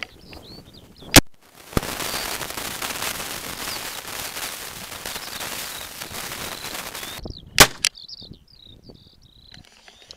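Two shotgun shots fired at birds in flight, about six and a half seconds apart. Between them a loud steady rushing noise, and faint high chirping of small birds around the shots.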